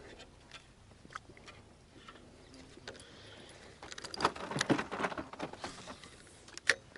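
Handling noise from a spinning rod and reel: scattered small clicks, then a louder cluster of clicks and rubbing about four seconds in as the reel is worked, and one sharp click near the end.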